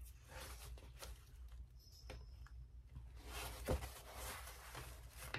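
Faint rustling of a large sheet of printed paper being lifted and handled, with one soft knock a little past the middle.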